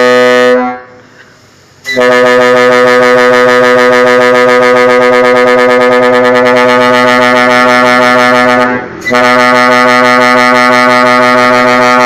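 Multi-tone telolet air horn sounding a steady chord in long blasts. One blast cuts off just after the start, a second about six seconds long follows a pause of about a second, and after a brief break a third begins and holds.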